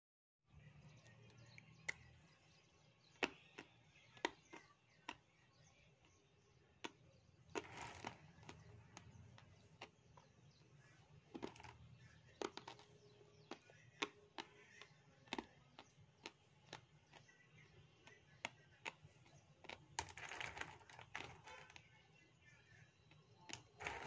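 A person chewing dry grey clay close to the microphone: irregular sharp crunches and crackles as the pieces break between the teeth, louder in a few clusters.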